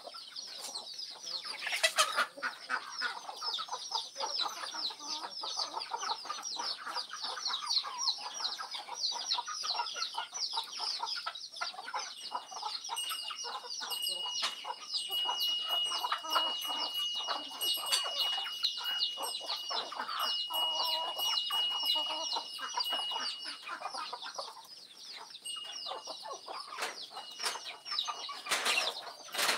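A flock of chickens clucking as they feed, over a constant rapid high chirping. A thin steady high tone runs through the middle stretch, and there are sudden sharp bursts about two seconds in and near the end.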